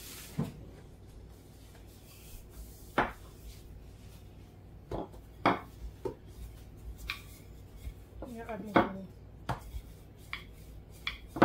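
Scattered knocks and taps of kitchen work on a hard surface, about a dozen spread out, with a short clatter about eight to nine seconds in.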